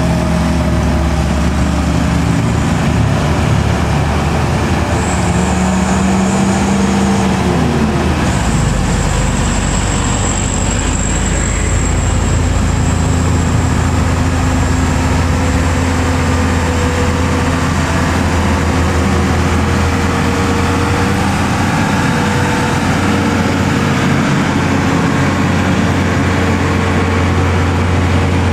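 Loaded heavy diesel trucks crawling uphill in low gear, their engines running steadily under load. A thin high whine runs through the middle.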